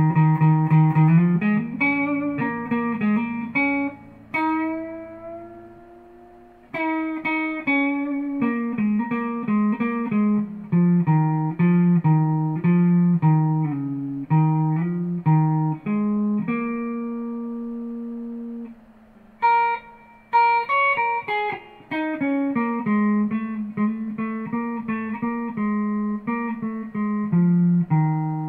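Epiphone electric guitar played solo: improvised single-note blues lines in B flat, with one note held for about two seconds just past the middle.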